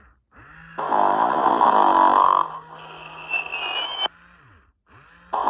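Tyco Sing & Snore Ernie toy snoring through its small speaker: a loud snore drawn in, then a whistling breath out that rises in pitch. After a short pause a second snore starts near the end.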